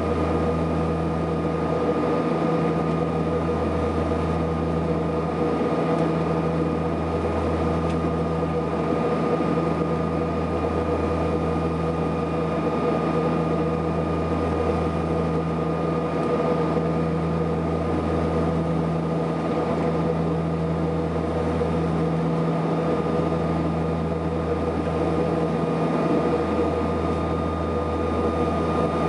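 Cabin noise of a Saab 340B turboprop airliner in flight: the steady drone of its General Electric CT7 turboprop engines and propellers with a high whine above it, the low hum swelling and fading every few seconds.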